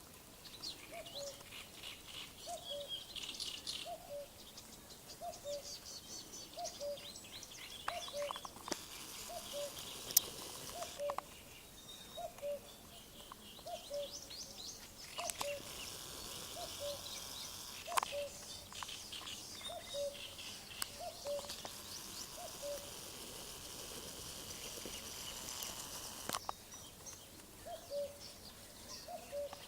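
Outdoor chorus of songbirds chirping and trilling, with a low two-note call repeating about once a second underneath, and a few sharp clicks.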